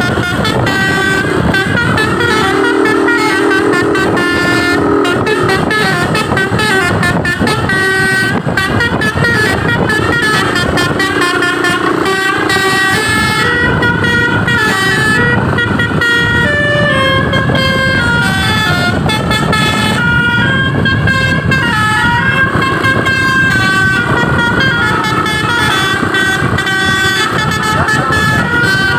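Basuri telolet bus horn, driven by a DAV melody module, playing a tune as a continuous run of rapidly changing notes. A lower held chord sounds briefly a few seconds in.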